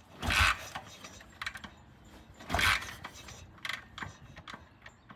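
BSA A65 Lightning's 650 cc parallel-twin being kick-started: two kicks about two seconds apart, each a short burst of kickstart mechanism and engine turning over without catching, with small metallic clicks between.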